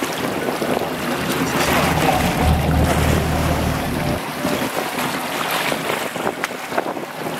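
Seawater rushing and churning along the hull of a sportfishing boat under way, with wind buffeting the microphone and the boat's engine running underneath. A low hum is stronger for about a second and a half in the middle, and there are a few light knocks near the end.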